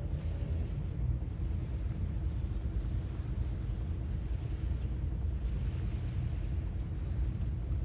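Sea waves washing in under a steady low rumble, with one wash swelling about five seconds in.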